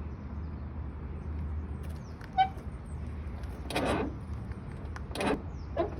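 Car door creaking as it is swung: a short squeak, then several short, coarse creaks, over a low steady hum.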